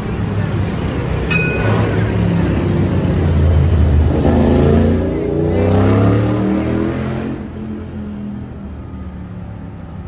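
Electric tram pulling into a stop: a low rumble with a motor whine that glides in pitch as it brakes, loudest in the middle and easing off about seven seconds in as it comes to a halt.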